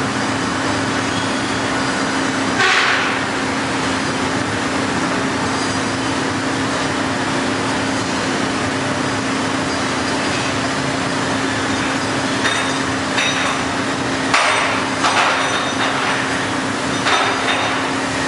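Heller four-roll CNC plate rolling machine running with a steady hum while rolling a steel plate, with sharp metallic clanks from the plate and rolls, once about three seconds in and several more in the last few seconds.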